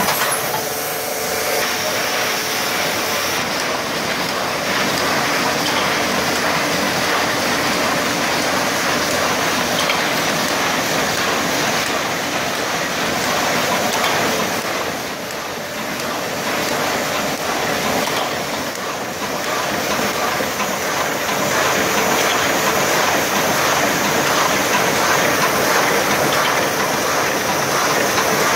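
1981 Bobst SP 102 E flatbed die-cutting press running in production: a loud, steady, dense mechanical noise from the machine cycling, dipping slightly a little past halfway.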